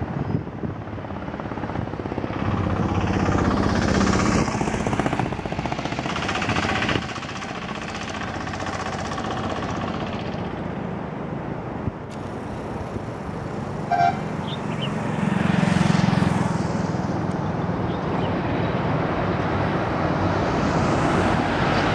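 Taxi's engine and tyre noise heard from inside the cabin while driving, swelling and easing as the car speeds up and slows. A short horn toot sounds about two-thirds of the way through.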